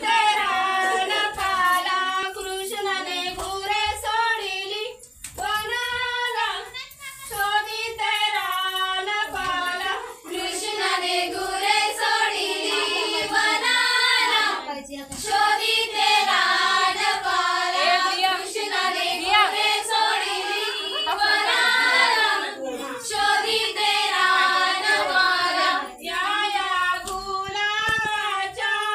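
A group of women and girls singing a traditional Ganpati dance song together in high voices, the melody carried in phrases with short breaks every few seconds.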